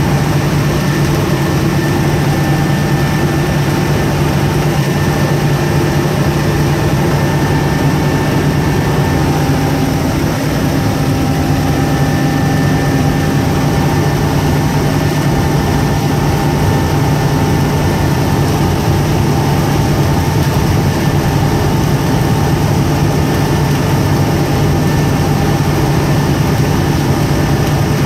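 Steady drone of running boat machinery: a low hum with a few faint, steady higher tones, unchanging throughout.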